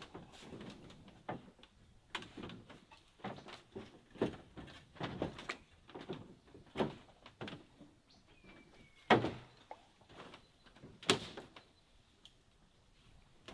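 Irregular knocks and clunks of bamboo on bamboo as a bamboo chair is shifted about on a slatted bamboo raft deck and sat in, with footsteps on the deck. The two loudest knocks come about nine and eleven seconds in.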